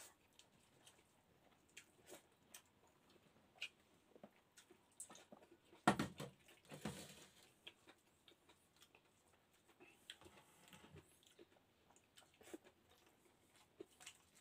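Faint sounds of a person eating with their hands: scattered small clicks and smacks of chewing and of fingers working rice, with one louder knock about six seconds in followed by a brief rustling.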